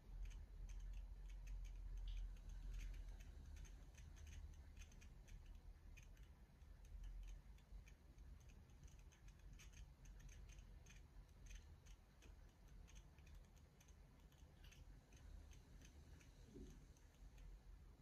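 Near silence: quiet room tone with a low hum and faint, scattered small clicks.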